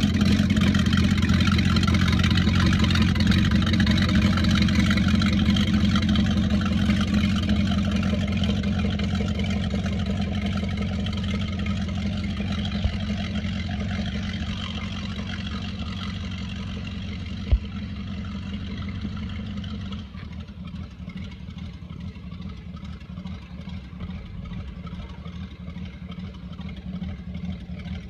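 MerCruiser 5.0 V8 sterndrive of a 1999 Crownline 225 BR bowrider running at low speed, its exhaust let out through the hull, growing steadily fainter. A single sharp click comes a little past halfway, and the level drops suddenly soon after.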